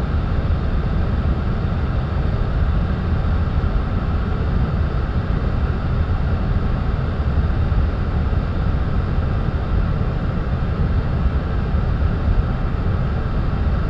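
Steady rushing noise of airflow and engines heard inside the flight deck of an Airbus A310 on final approach, deep and even with no sudden events.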